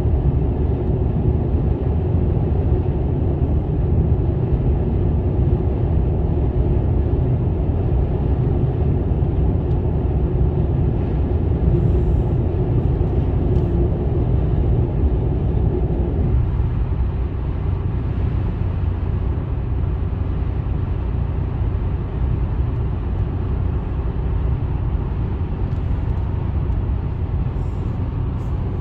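Steady road and tyre noise inside a car's cabin at highway speed of about 75, with a low rumble. The higher part of the noise drops off a little about halfway through.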